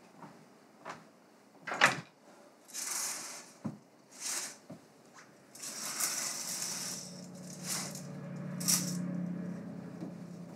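Curtains being drawn along a rod: rings rattling and scraping as they slide, with the fabric swishing, in several pulls. A few sharp knocks come first, the loudest about two seconds in, and a low hum sits underneath in the second half.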